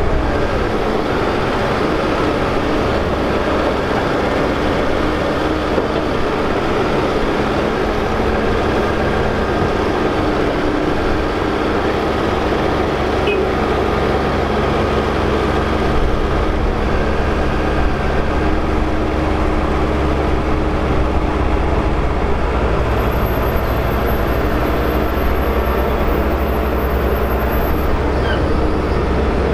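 Doosan DX140LC excavator's diesel engine running steadily under load, with the hydraulics working the boom and tiltrotator bucket as it digs and swings soil.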